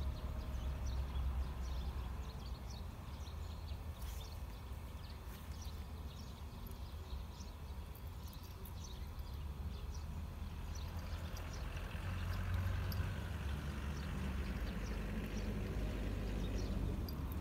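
Outdoor ambience: a steady low rumble that swells for a few seconds in the second half, with scattered faint ticks and clicks.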